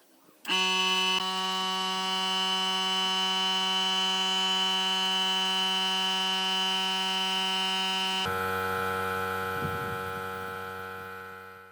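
Sustained electronic tone with many overtones that starts abruptly and holds perfectly steady. About eight seconds in it switches suddenly to a lower tone, then fades out.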